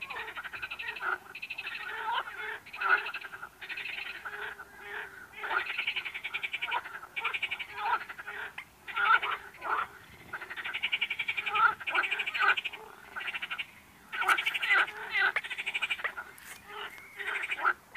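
Frogs croaking in chorus: many quick, pulsed croaks of about half a second to a second each, overlapping and repeating almost without pause.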